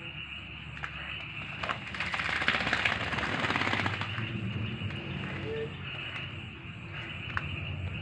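A burst of splashing and wing-fluttering about two seconds long, starting about two seconds in: a small bird bathing in a plastic basin of water while a common hill myna flaps its wings beside it.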